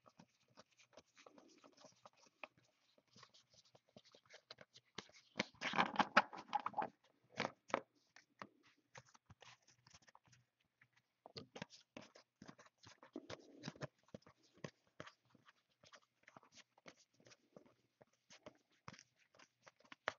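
Trading cards being flipped through by hand: a quick run of faint clicks and slides of card stock against card, with a louder flurry about six seconds in.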